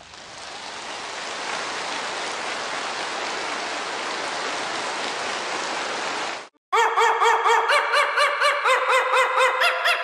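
A large hall full of people applauding, rising over the first second or so, then holding steady before it cuts off abruptly about six and a half seconds in. A rhythmic run of short pitched notes, about three a second, follows to the end.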